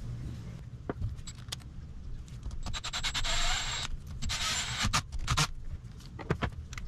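Socket wrench working a 10 mm fastener on the motorcycle engine: metal tools clinking, with two short stretches of rasping ratchet noise about three and four and a half seconds in.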